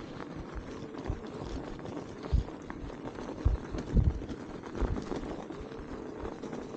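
Electric bike riding through snow: tyres crunching over the snow steadily, with several short low thumps, the loudest about four seconds in.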